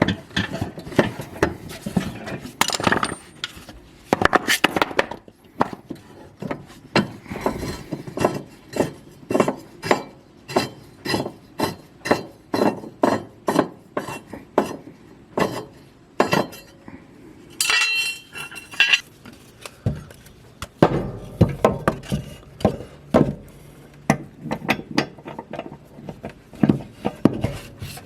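Metal tools and mower-deck hardware being handled: repeated metallic clinks and knocks, with a run of evenly spaced clicks at about two a second in the middle.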